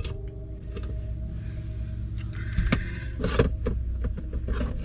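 Plastic knocks and clicks of a car arm rest console being screwed down and fitted, with a brief whir of a cordless drill/driver, over a steady low hum.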